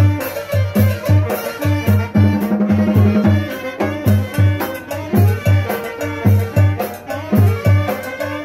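Upbeat Latin-style dance music with a steady thumping bass beat, about three beats a second, and bright percussion.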